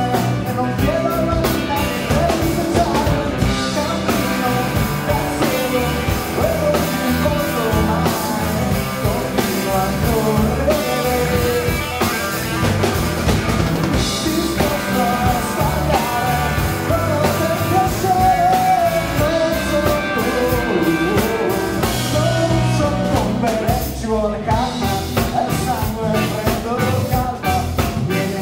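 Live rock band playing a song: drum kit, electric bass, strummed acoustic guitar and electric guitar, loud and steady throughout.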